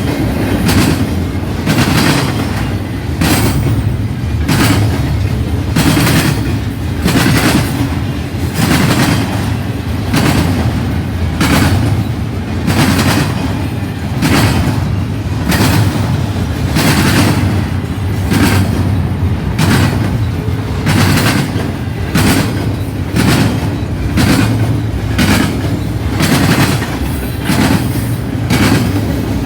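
Cars of a CN intermodal freight train rolling past, a steady low rumble with wheels clacking over rail joints in a regular rhythm of about one to two clacks a second.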